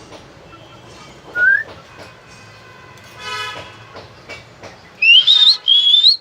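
Pet hill myna whistling: a short rising whistle about a second and a half in, a brief nasal call in the middle, then loud rising, wavering whistles in the last second.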